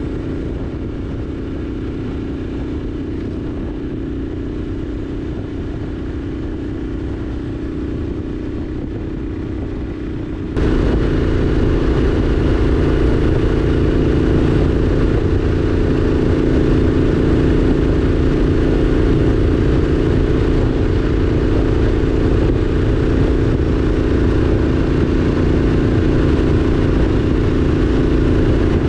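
Triumph Street Scrambler's 900 cc parallel-twin engine running at a steady cruising speed on the open road, over road noise. The sound steps up suddenly in loudness about ten seconds in.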